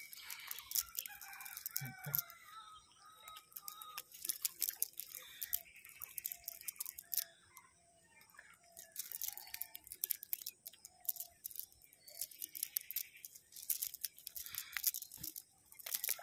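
Nylon cast net rustling and crackling as small fish are picked out of its mesh by hand, with many short clicks. A chicken clucks now and then in the background.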